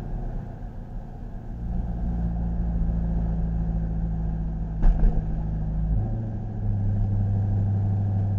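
Dodge Durango's engine and road noise inside the cabin, picked up by the dash cam's built-in microphone while driving. The low steady hum changes pitch about two seconds in and again about six seconds in, and a short knock sounds about five seconds in.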